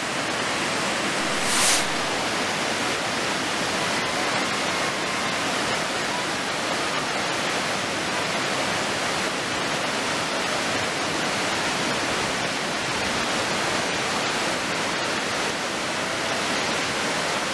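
Whitewater river rapids rushing steadily over rocks, with one brief louder surge of noise about two seconds in.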